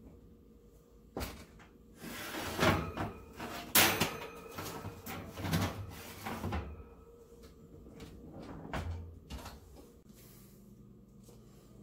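Wire oven rack of an electric range being slid and repositioned, a run of metal clatters and scrapes, loudest about four seconds in. Near the end the oven door is shut with a thud.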